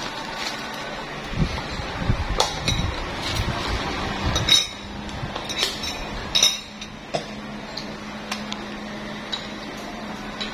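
Dishes and cutlery clinking and knocking on a meal table, with a few dull thuds early on and two sharper clinks about four and a half and six and a half seconds in.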